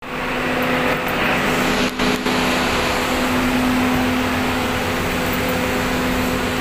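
Ferry's engines droning steadily under a loud, even rush of noise from water and wind.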